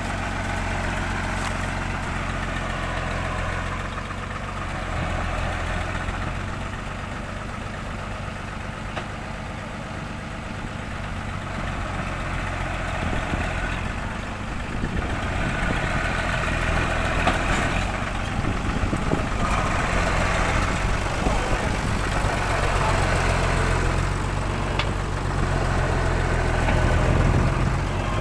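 Engine of a tracked winch rig running steadily, getting somewhat louder about halfway through.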